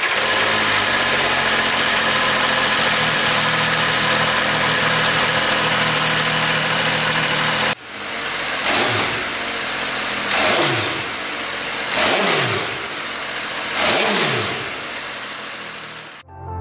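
MV Agusta F3 RC's 798 cc inline-three engine running steadily through its triple-outlet exhaust. After a sudden cut about eight seconds in, it is revved four times, each blip falling back down.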